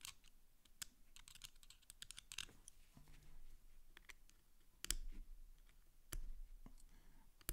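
A small screwdriver and metal folding-knife parts being handled: faint, irregular light clicks and scrapes, with a few sharper clicks about five and six seconds in.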